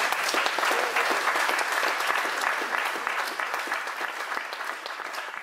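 Audience applauding at the end of a speech, the clapping slowly dying down.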